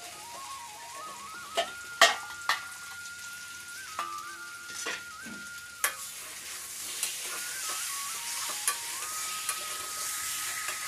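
Metal spatula stirring potatoes in spice paste in a metal kadai, the masala sizzling as it fries. Several sharp knocks and scrapes of the spatula against the pan come in the first six seconds, and the sizzle grows louder in the second half.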